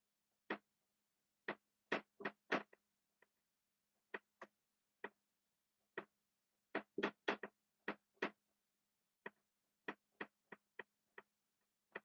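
Dry-erase marker writing on a whiteboard: a string of short, faint taps and scratches from the pen strokes, irregularly spaced, with bunches about two seconds in and again around seven seconds.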